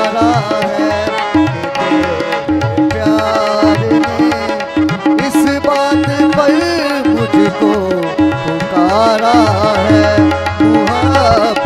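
Tabla playing a steady rhythm under held harmonium chords in a devotional song. A man's voice sings wordless sliding runs over it a few times, near the start, in the middle and near the end.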